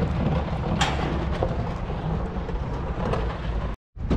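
Wind buffeting the camera's microphone, a steady low rumble with a brief knock about a second in; the sound cuts out suddenly near the end.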